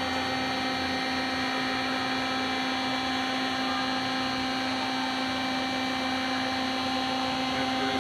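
A 1998 Amada H1080-1100W horizontal band saw running steadily, with a constant motor hum and whine.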